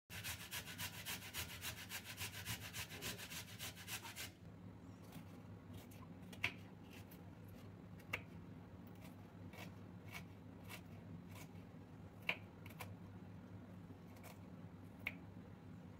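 Carrots being grated: quick, even scraping strokes, about six a second, for the first four seconds. Then a knife dicing onion on a wooden cutting board, with scattered light taps of the blade on the wood.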